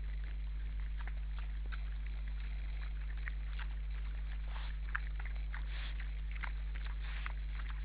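Wild boars feeding: irregular short crunching and crackling as they chew and root in the snow, with no calls. A steady low hum runs underneath.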